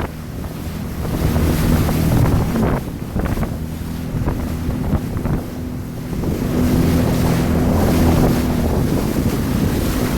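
Jet ski engine running under way, with water rushing past and wind buffeting the microphone. It eases off for a few seconds, then picks up again and runs louder and steadier from about six seconds in.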